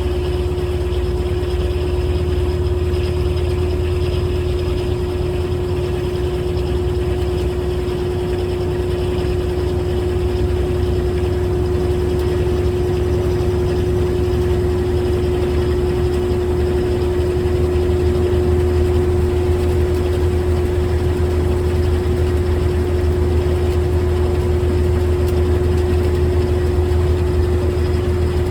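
GE top-load washing machine running mid-cycle with its lid up: a steady mechanical hum with a constant tone, growing slightly louder about two-thirds of the way through.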